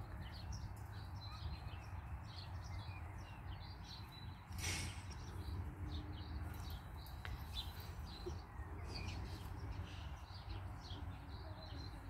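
Small birds chirping faintly and repeatedly over a steady low rumble, with a brief rush of noise about four and a half seconds in.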